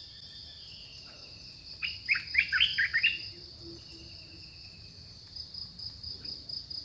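A bird calling a quick run of about six falling, whistled notes about two seconds in. A steady, high-pitched insect buzz runs underneath.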